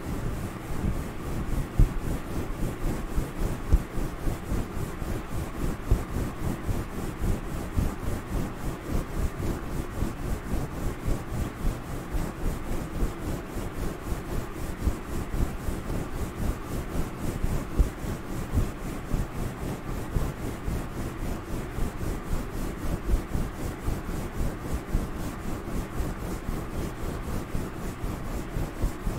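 Fingers scratching and rubbing a fluffy, furry microphone cover close up, a continuous rapid scratchy rustle made to sound like head scratching.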